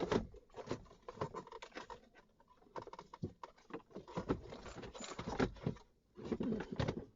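Hands fumbling behind a car dashboard: irregular rustling, scraping and light clicks of plastic trim and wiring as a cluster connector is reached for.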